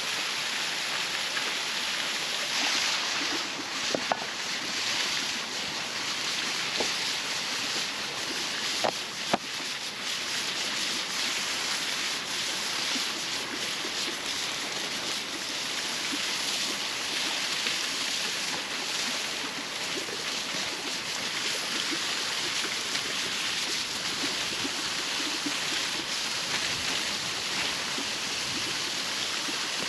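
Waterfall rushing steadily, with a few sharp clicks about four and nine seconds in.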